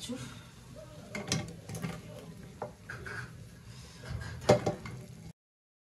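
A metal spoon knocking and scraping against a cooking pot as vegetables are tipped into the dal, in a few scattered clinks. The loudest knock comes about four and a half seconds in. The sound cuts off suddenly just after five seconds.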